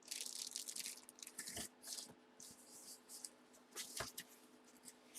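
Faint rustling and handling noises in short bursts, with two light knocks, one about one and a half seconds in and one about four seconds in, over a faint steady hum.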